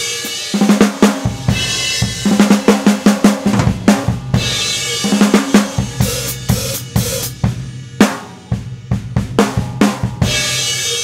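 Drum kit played in a rock groove, snare and bass drum strokes with crash cymbal hits every couple of seconds, each crash ringing out in a long, bright wash.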